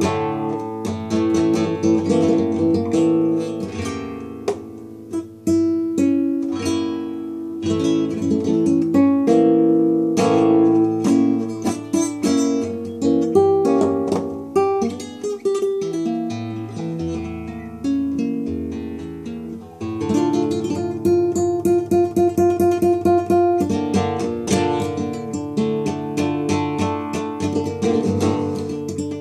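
Acoustic guitar played solo, picking out single notes and chords; about twenty seconds in it turns to quicker, denser strumming.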